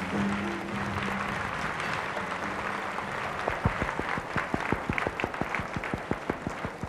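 Audience applauding, with the music holding a final note for the first second or so. From about halfway, a run of sharp, close hand claps, several a second, stands out above the crowd's applause, which then slowly fades.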